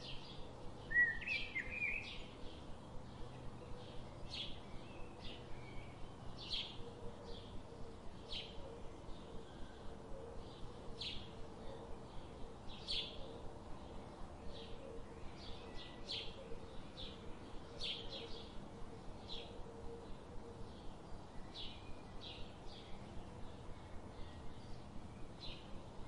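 Small birds chirping: short, high chips repeated every second or so, with a quick twitter about a second in.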